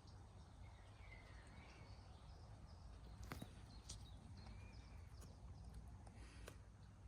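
Near silence: faint ambience with a steady low rumble, a few faint high chirps and several sharp clicks, the loudest about three seconds in.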